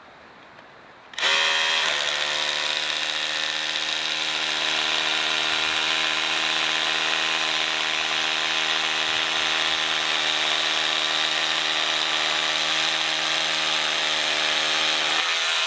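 Makita XRH01 18V brushless SDS-Plus rotary hammer drilling a 3/8-inch hole into rock in drill-and-hammer mode. It starts about a second in with a short rising whine, then runs at a steady pitch.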